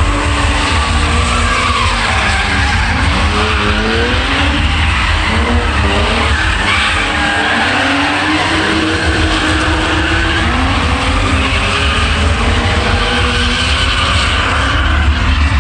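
BMW cars drifting, their engines revving up and down and their tyres squealing.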